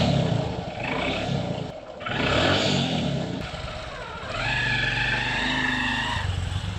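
Motorcycle engine revving in two surges, then holding a steady high whine over a low hum for about two seconds.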